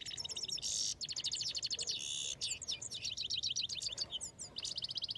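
European goldfinch singing: a fast, continuous twittering of high chirps and trills, with a few brief buzzy notes.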